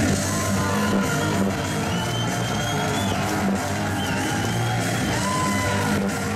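Loud hard-rock entrance music with guitar and drums playing steadily over the arena sound system.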